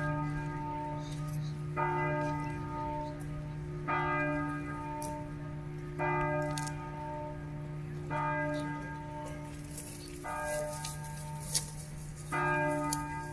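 Church bell struck by its hammer (campana a martello), one stroke about every two seconds, each stroke ringing on into the next over a steady low hum.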